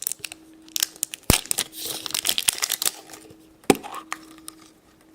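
Toy surprise packaging being torn open and crinkled by hand, with many small clicks and two sharp knocks, one about a second in and one near the middle.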